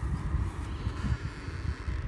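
Wind buffeting the microphone in uneven low rumbling gusts, over a faint steady outdoor hiss.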